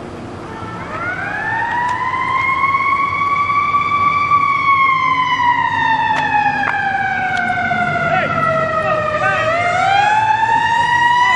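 Fire engine siren wailing. The pitch rises about a second in, falls slowly over several seconds, then starts rising again near the end.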